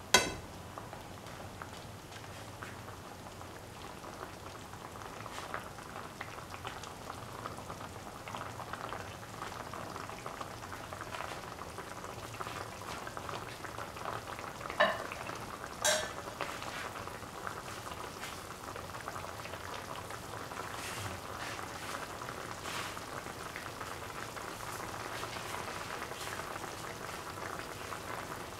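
Prawn curry in coconut milk boiling, a steady bubbling crackle. A sharp knock comes right at the start, and two more about fifteen and sixteen seconds in.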